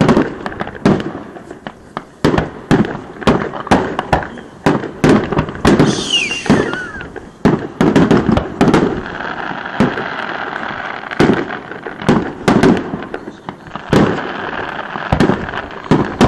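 Aerial fireworks display: shells bursting in quick succession, two or three sharp bangs a second. A short falling whistle sounds about six seconds in, and the bangs give way to a stretch of steady crackling in the middle and again near the end.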